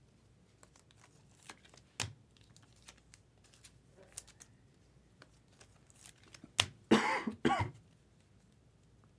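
Faint scattered clicks and plastic rustles of trading cards being handled and slid into a sleeve and top loader. About seven seconds in, a person coughs twice in quick succession. The coughs are the loudest sound.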